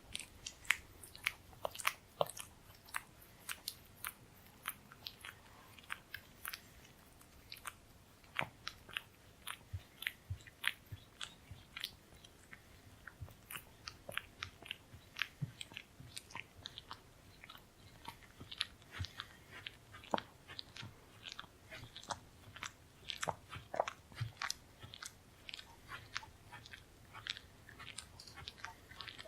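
A dog licking: quick wet smacks and clicks of the tongue and lips, several a second at an uneven pace.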